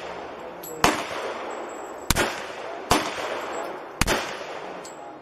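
Four shots from a stainless M1911-pattern semi-automatic pistol, fired at an uneven pace about a second apart, each followed by a short echoing tail.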